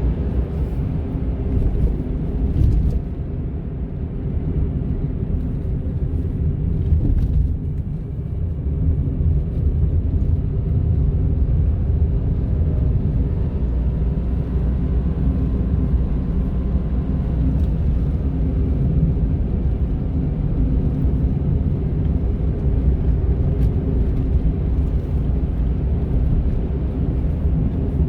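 Honda N-ONE kei car driving: steady engine and road rumble with a constant motor-like hum running through it. The owner wonders whether that hum is a fault in the car.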